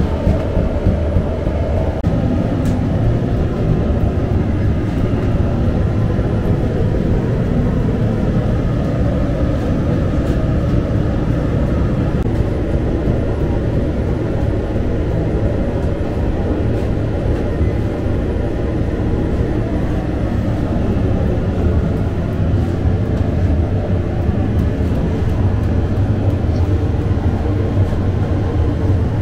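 Steady low roar of bakery equipment running without a break.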